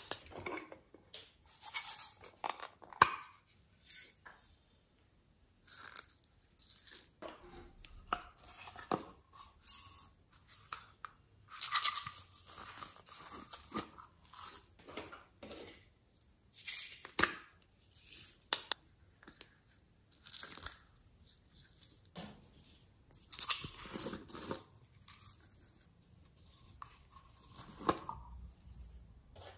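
Irregular bursts of crackling and rustling, with a few sharp plastic clicks, from hands handling small plastic toy containers and tipping their contents into a glass tray of slime.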